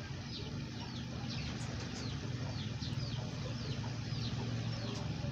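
Birds chirping over and over in short, high, falling notes, over a steady low hum from the tub's electric aquarium air pump.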